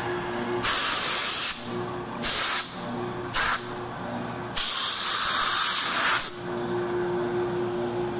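CNC router spindle running with a steady whine, broken by four loud bursts of hissing cutting noise as the bit passes back and forth through the end of a wooden tabletop, milling a spline slot. The longest burst lasts nearly two seconds, in the middle.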